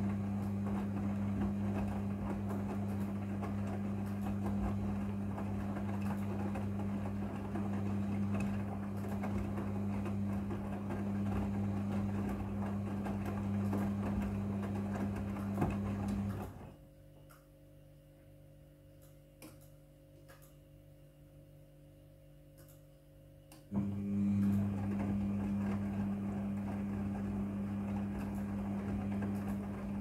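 Midea front-loading washing machine in its wash rotation: the drum motor runs with a steady low hum while the laundry tumbles. It stops for about seven seconds past the middle, then starts turning again.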